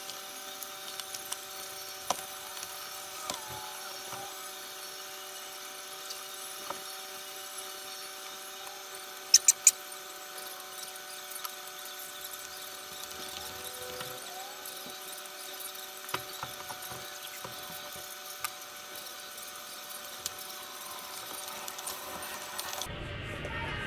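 Cardboard being handled and taped to a wall: scattered light taps and rustles, with three sharp clicks in quick succession about nine seconds in. A steady electric hum of several tones runs underneath.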